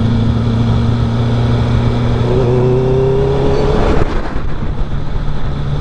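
Honda CB650R inline-four through an aftermarket R11 Villain full exhaust, running really loud as the motorcycle rides, a steady drone with a slightly rising note in the middle as it pulls.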